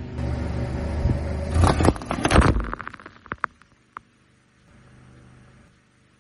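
Car engine running steadily, then a loud burst of crunching and cracking about a second and a half in as aluminium drink cans are crushed under the car tyre. A few small clicks follow, then a faint fizz from the spilled soda foam.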